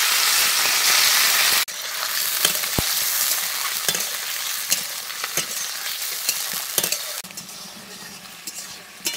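Snails frying in hot mustard oil in a kadai: a loud sizzle that drops abruptly about a second and a half in, then a quieter sizzle full of sharp pops, with a metal spatula scraping and clinking as they are stirred.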